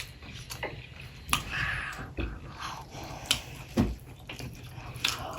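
Close-up chewing and crunching of boudin sausage balls coated in hot Cheetos and Takis dust, with a few sharp crunches scattered through it.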